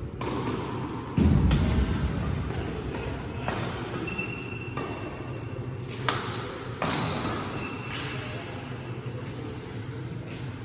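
Badminton rally: sharp cracks of rackets hitting the shuttlecock about once a second, with short squeaks of court shoes on the floor between the shots, over a steady low hum of the hall.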